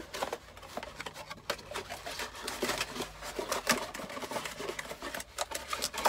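Cardboard box and paper packaging being opened and handled to get a mug out: irregular rustling and crinkling with many sharp clicks.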